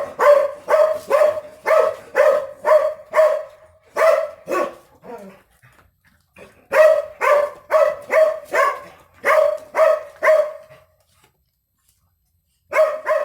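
A dog barking repeatedly, about two barks a second, in two long runs with a short break between them, then falling quiet before two more barks near the end.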